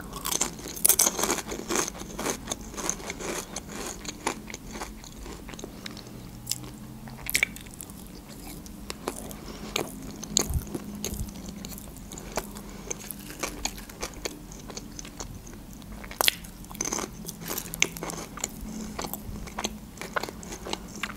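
Paprika potato chips crunched and chewed close to a clip-on microphone: dense crisp crunches in the first few seconds, then thinning to scattered crunches as the chewing goes on.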